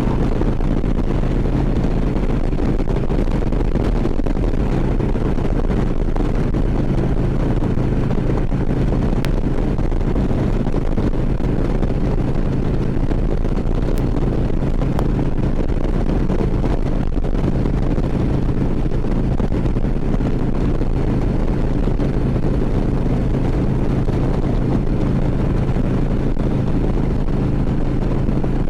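Harley-Davidson V-twin touring motorcycle running at a steady cruising speed, with wind rushing over the microphone.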